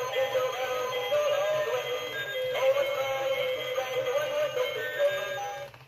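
NB Toys animated Dancing Santa figure playing its built-in song, a singing voice over music; the song fades out just before the end.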